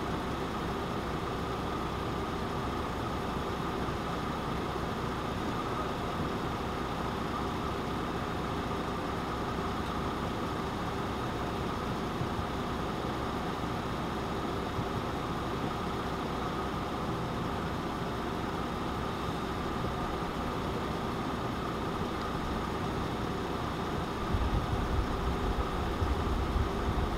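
Steady hum of a vehicle engine idling, with some low rumbling starting near the end.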